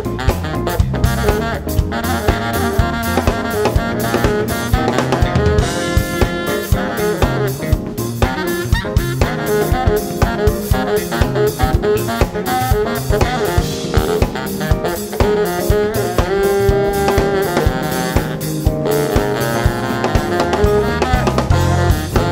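Live jazz-funk band: a drum kit playing a steady, busy groove with a saxophone melody on top, over electric bass and Fender Rhodes electric piano.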